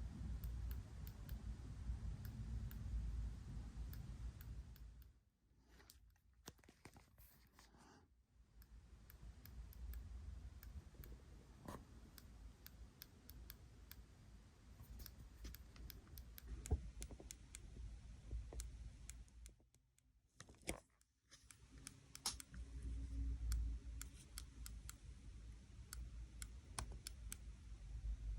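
Faint, irregular clicking from the IcePower 300AS1 amplifier module of a powered-off Kemper Power Kabinet. This is the oscillating click the board makes while switched off, which the owner links to a supply voltage that keeps rising and falling. A low rumble runs under the clicks.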